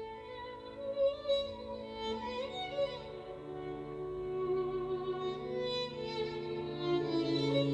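Violin playing a slow melody of long bowed notes, several held at once at times.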